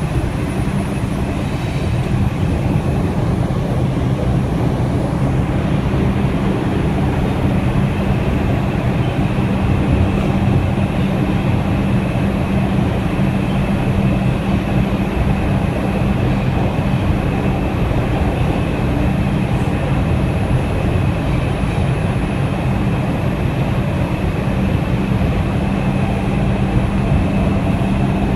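R142 subway car running through a tunnel, heard from inside the car: a steady loud rumble of wheels on rail with a low hum and a faint high tone.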